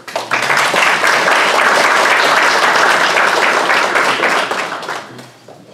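Audience clapping, starting right away, holding steady for about four seconds, then dying away near the end.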